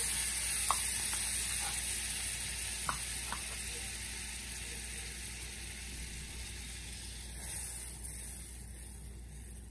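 Butter sizzling as it melts in a hot stainless saucepan, the hiss slowly fading. A few light clicks come in the first three seconds or so.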